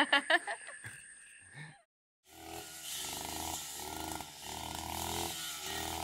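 A woman's laughter trails off in the first second. After a short hush, a grass trimmer (brush cutter) engine runs steadily from about two seconds in, its speed dipping and rising now and then.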